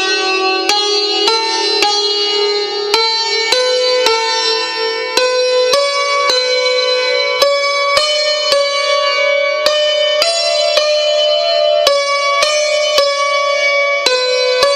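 Persian santur struck with a pair of light mezrabs, playing a steady lesson exercise of sixteenth- and eighth-note figures. Each stroke is a sharp metallic attack, and the strings ring on between strokes.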